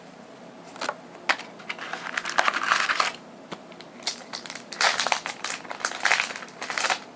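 Foil Pokémon booster pack wrapper being torn open and crinkled in the hands, in two bouts of crackling with sharp clicks.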